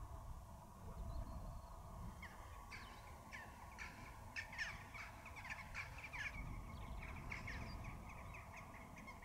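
Faint bird calls: a rapid run of many short calls, each dropping in pitch, starting about two seconds in and going on, over a low rumble.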